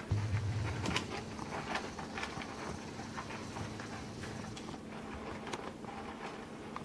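Miniature American Shepherd puppies moving about their pen: scattered light clicks, taps and rustles of paws and claws on the blanket, the pellet-litter tray and its plastic rim. A brief low rumble of the camera being handled comes near the start.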